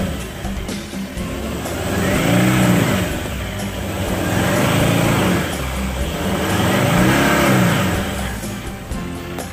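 Ford Everest's 3.2-litre five-cylinder turbodiesel revving up and falling back three times as the SUV pulls itself up a muddy track, each rev rising and dropping over about a second and a half.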